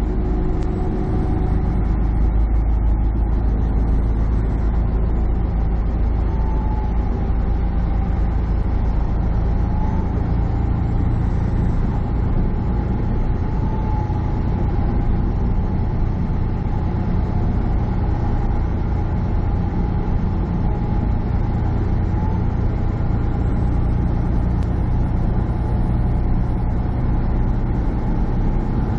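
Semi truck driving on the highway, heard from inside the cab: a steady low engine drone mixed with road noise.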